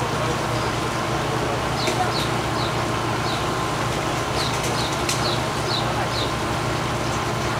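Small birds repeat a short, falling chirp about every half second, starting about two seconds in, over a steady low rumble.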